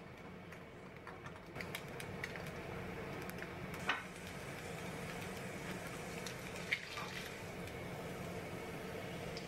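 An egg frying in oil in a nonstick frying pan over a gas burner: a steady sizzle with small crackles. Two sharp knocks against the pan, about 4 and 7 seconds in, are the loudest sounds.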